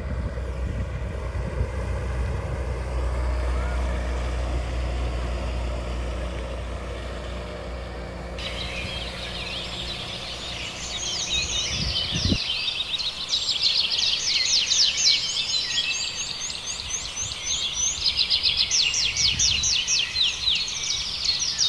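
A speedboat's engine running at a steady pitch, stopping abruptly about twelve seconds in. From about eight seconds in, small birds sing and chirp continuously with rapid high notes.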